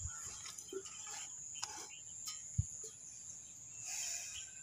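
Faint outdoor ambience: a steady high-pitched insect chirring, with a few light taps and scrapes, one low thump a little past halfway, and a short rush of hiss about four seconds in.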